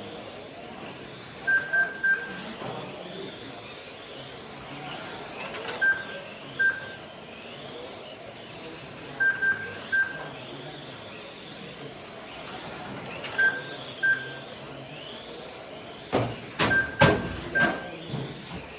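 1/12-scale GT12 electric RC cars running around a track, a faint motor whine rising and falling, with short electronic beeps in twos and threes every few seconds: the lap-timing system registering cars crossing the line. Near the end a few sharp knocks come among the beeps.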